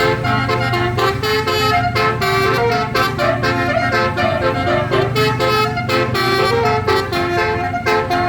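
Bus telolet horn of the Basuri multi-tone type, playing a tune of short stepped notes that jump up and down several times a second over a steady low hum.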